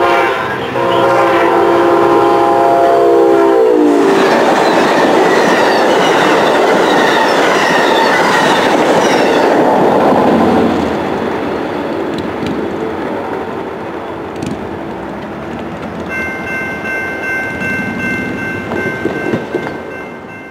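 Siemens SC-44 Charger passenger locomotive blowing its horn on approach; the chord drops in pitch as it passes, about four seconds in. The loud rush and clatter of the passenger train's wheels on the rails follows and fades as it goes away. Steady high ringing tones come in near the end.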